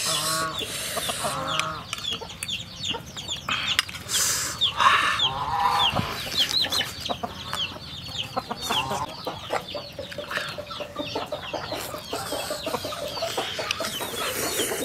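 Chickens clucking, with many short high cheeping calls repeating throughout, mixed with a few bursts of chewing and crunching from a person eating.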